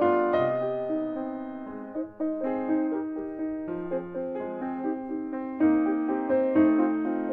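Schimmel grand piano played solo: a flowing passage of single notes and chords, each note ringing on under the next.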